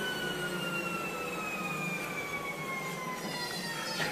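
Electric treadmill motor whining over a steady low hum, its pitch sliding slowly downward as the belt slows.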